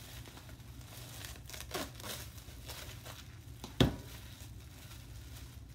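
Plastic cling wrap being cut and torn off a foam meat tray and crumpled by hands in plastic food-prep gloves, with light crinkling and one sharp snap about four seconds in.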